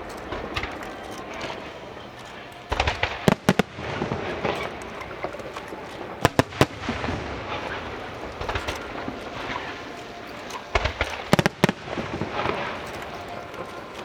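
Fireworks display: aerial shells bursting in three clusters of sharp, loud bangs, a few seconds apart, over continuous crackling.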